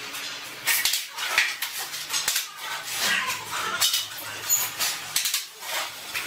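Steel trowel scraping and spreading tile adhesive, a run of short rasping strokes with light metallic clinks, pausing briefly near the end.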